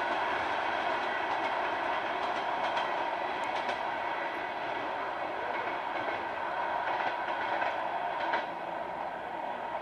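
A train running on the rails, with a steady whine, a few wheel clicks, and slowly fading.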